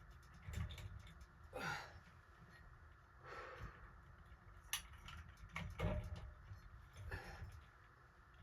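Faint, scattered light clicks and rustles of small parts and tools being handled during ceiling-fan wiring work.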